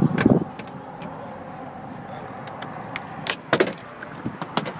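Sharp plastic clicks and knocks, scattered, with a cluster about three and a half seconds in, as the plastic trim panel around an electric car's front trunk is worked loose by hand.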